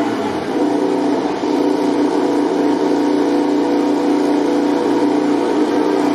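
MotoGP racing motorcycle engine running at steady revs, holding one even pitch.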